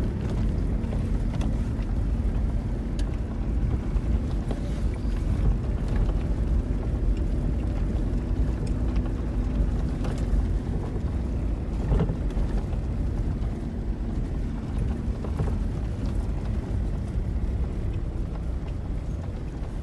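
Road noise inside a car driving on an unpaved dirt road: a steady low rumble of the tyres and engine, with a few brief knocks and rattles from the rough surface.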